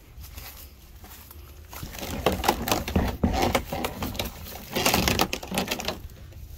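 White PVC fence gate being pulled open by hand, its plastic panels and broken hinge clattering and scraping in a run of clicks and knocks, with a loudest burst about five seconds in.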